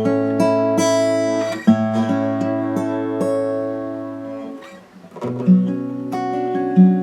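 Espana acoustic guitar played in chords, each chord struck and left ringing. It fades out about two-thirds of the way through, and a new chord is struck right after. The guitar has just been fitted with a compensated nut, so that it plays in tune.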